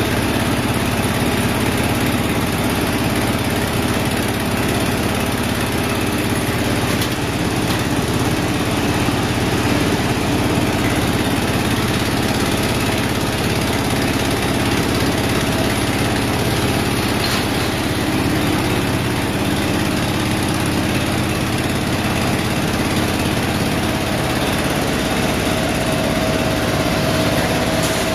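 Fluidized-bed PVC powder coating machine for wire mesh running: a steady, loud machine drone from the air blower that keeps the powder bubbling, with a low hum underneath. A faint whine grows a little stronger near the end.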